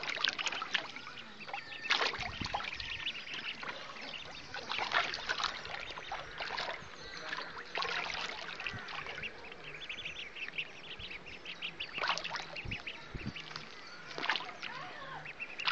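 A brood of young mallard ducklings peeping busily and continuously, many high short calls overlapping, while they paddle and splash in shallow water; several louder splashes come at intervals of a few seconds.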